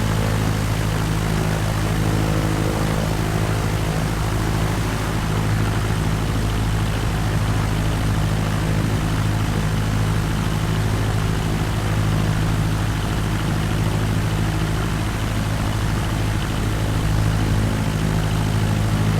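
Cessna 172's piston engine and propeller running at a steady cruise drone, with a constant low hum and a wash of wind and engine noise.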